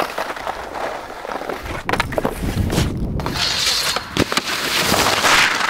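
Skis sliding on packed snow into a rail, heard through the skier's own body-worn microphone. A few knocks come through, then a louder scraping hiss over the last couple of seconds as the skis slide along the metal stair handrail.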